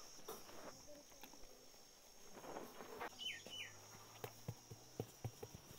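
Crickets chirping steadily, with two short falling bird chirps about three seconds in and a few faint taps near the end.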